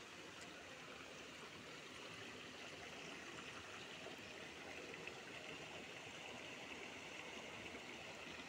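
Faint, steady rush of a shallow stream running over and between rocks.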